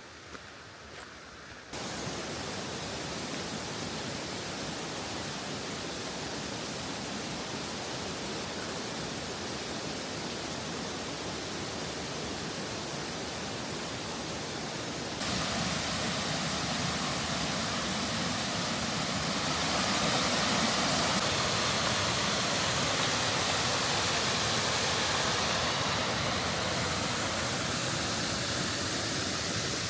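Steady roar of a river and waterfall, an even rushing hiss that jumps louder abruptly about two seconds in and again about halfway through.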